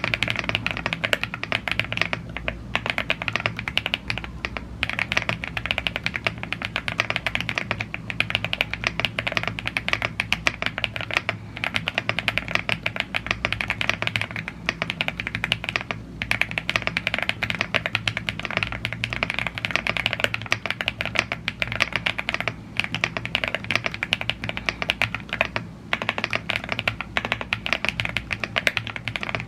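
Fast continuous typing on a YUNZII AL75 gasket-mounted aluminium mechanical keyboard with blue grey tactile switches and PBT keycaps, with a few brief pauses, including two around 2 and 16 seconds in.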